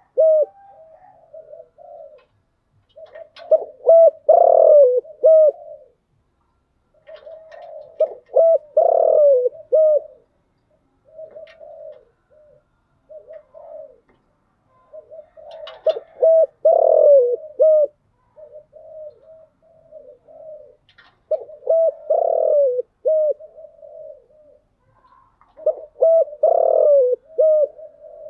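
Spotted dove cooing in repeated phrases, a loud phrase about every four to six seconds with softer coos between; a lure call used to draw and rouse other doves.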